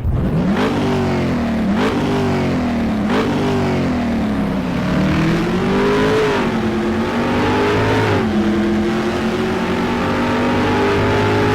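Car engine blipped sharply three times in quick succession, then revved up and down more slowly twice, then holding at a steady speed for the last few seconds.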